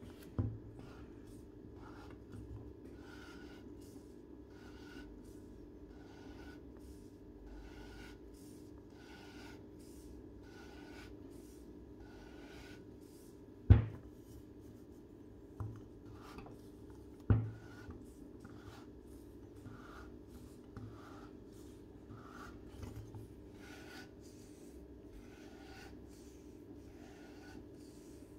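Wacaco Pipamoka portable coffee maker being worked by twisting its top back and forth, giving soft rubbing strokes about twice a second as it pumps pressure to push the water through the ground coffee. A sharp knock comes about 14 s in, with two lighter knocks a few seconds later, over a steady low hum.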